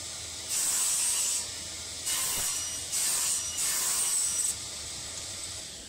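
Table saw running, with several short crosscuts through a thin pine strip: about four louder stretches of cutting noise, each under a second, over the steady hiss of the spinning blade.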